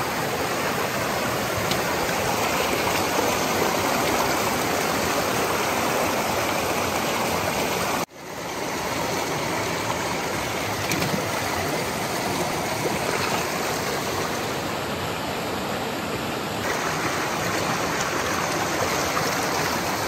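Shallow mountain stream rushing and splashing over rocks in a steady wash of water. The sound cuts out for a moment about eight seconds in, then comes straight back.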